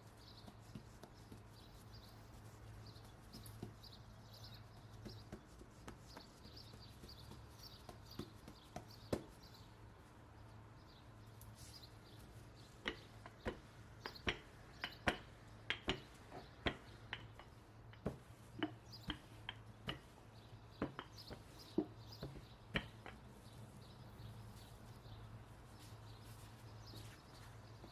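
Kitchen work: a run of sharp taps and knocks, one or two a second, starting about twelve seconds in and stopping near the twenty-three-second mark, over a low steady hum.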